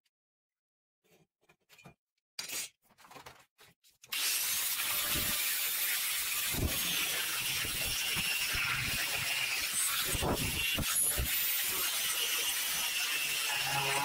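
A few light knocks of steel pieces being handled, then about four seconds in an angle grinder starts cutting steel profile tube, with a loud, steady grinding noise and a faint high whine that run on to the end.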